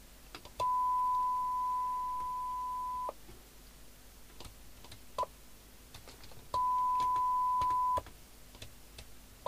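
A steady test tone from the Binatone Route 66 CB radio's speaker, cutting in and out as the squelch opens and closes while the squelch preset is being adjusted against a signal-generator test signal. It is on for about two and a half seconds, blips briefly, then comes on again for about a second and a half, with small clicks at the changes.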